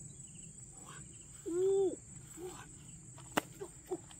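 Steady high-pitched insect chorus. A short voice-like call that rises then falls about a second and a half in is the loudest sound, and a sharp click comes a little past the middle.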